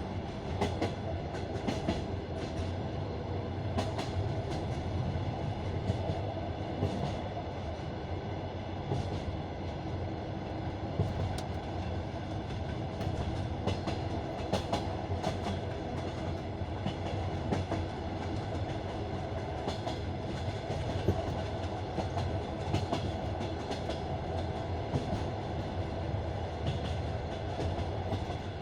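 Passenger train running on the rails, heard from aboard the carriage: a steady rumble of the wheels with irregular clicks and knocks as they pass over rail joints and points.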